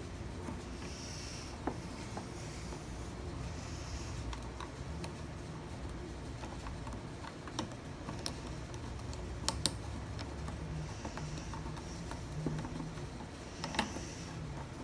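Lock pick and tension tool working a small pin-tumbler gumball machine lock: scattered short metallic clicks and scrapes over a steady low hum.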